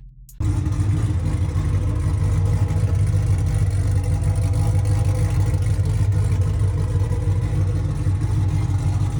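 A C6 Corvette Z06's 7.0-litre LS7 V8 running steadily, cutting in abruptly about half a second in with a deep, even exhaust note.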